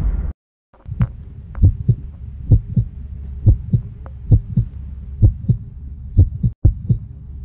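A low rumble from the GoPro logo intro cuts off about a third of a second in. Then come muffled low thumps, about two or three a second, over a faint steady hum, from a GoPro camera hung on a cat's collar bumping and rubbing against the cat's body as it moves.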